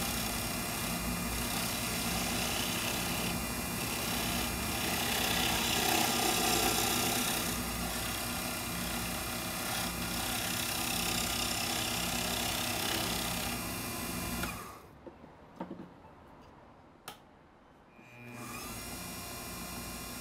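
Small wood lathe running with a steady motor hum while a turning tool cuts a sugar maple pen blank, the scraping of the cut louder around six seconds in. About fourteen and a half seconds in the sound drops away almost to nothing apart from a few clicks, and the lathe's running resumes some four seconds later.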